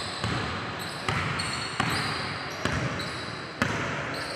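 Basketball dribbled on a hardwood gym floor: five bounces, about one a second.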